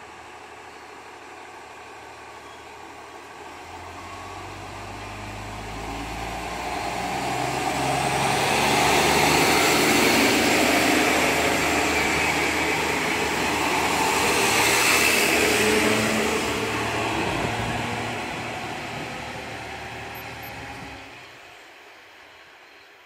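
Two-car ex-Kururi Line KiHa 37/38 diesel railcar idling, then its engines rev up as it pulls away from the station. The sound grows loudest as the cars pass close, then fades into the distance.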